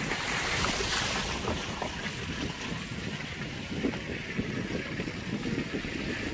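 Road rumble and wind noise of a moving car, with wind buffeting the microphone; the rush of wind is strongest in the first second or so.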